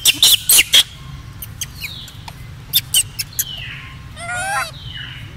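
Baby macaque eating a red fruit close up: loud sharp smacking clicks, four in the first second and a few more about three seconds in. Between them come thin high falling chirps and, about four seconds in, a short wavering squeak.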